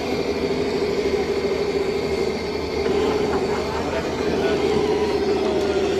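Traxxas TRX-4 Land Rover Defender scale RC crawler's electric motor and gearbox whining steadily as it crawls up a ramp.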